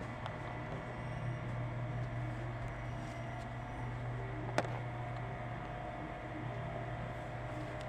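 Steady low mechanical hum with a faint high whine, and one sharp click about four and a half seconds in.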